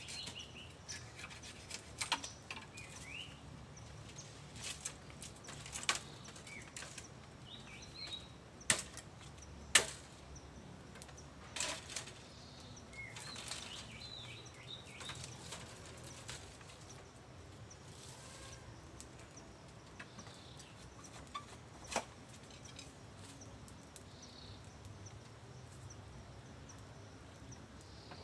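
Irregular sharp crackles and snaps of dry bamboo leaves and twigs, a few much louder than the rest. Faint bird chirps come near the start and again about eight seconds in.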